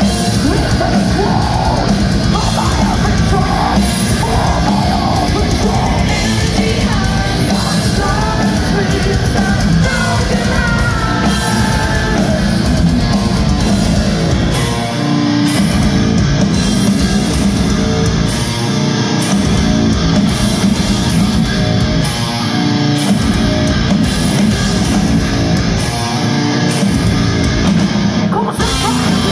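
Heavy metal band playing live: distorted guitars, bass and drums with a woman singing. In the second half the band hits short stop-start breaks every few seconds.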